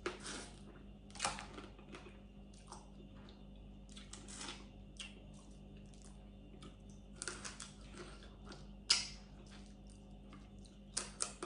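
Close-up eating sounds from cooked blue crab: irregular sucks, smacks and crackles of shell being picked apart by hand, the sharpest about nine seconds in.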